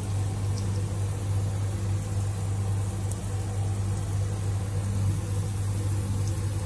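An electric machine running steadily with a loud, even low hum and a hiss over it.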